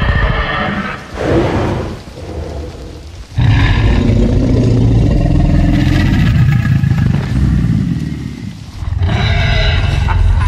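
Film sound effect of a Tyrannosaurus rex roaring and growling in a series of long calls. The longest and deepest is a low rumbling growl that starts about three and a half seconds in and lasts about five seconds, and a higher-pitched roar follows near the end.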